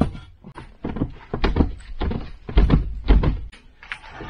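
Irregular series of thumps and knocks, about two or three a second, as a 1/8-inch aluminum sheet is forced by hand over a clamped edge on a wooden workbench to bend it.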